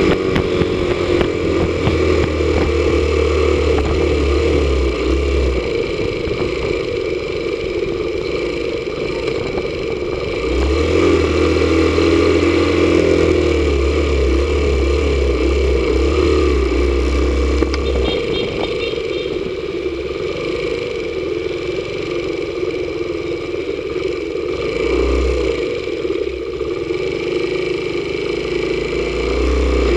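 Motorcycle engine running while riding, with a steady noise of the ride around it; the engine grows louder about ten seconds in for several seconds, then eases back.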